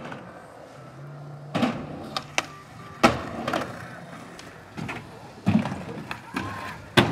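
Skateboard wheels rolling on concrete, broken by a series of sharp clacks of the board popping and landing, the loudest about three seconds in and near the end.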